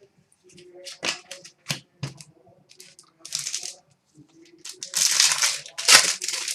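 Trading cards being handled: a few light clicks and taps, then two longer bursts of cards sliding and rustling against each other, with a sharp snap about six seconds in.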